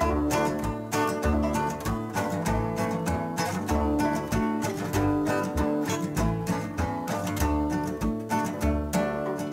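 Instrumental country-style music: acoustic guitar picked and strummed in a quick, even rhythm over repeating low bass notes, with no singing.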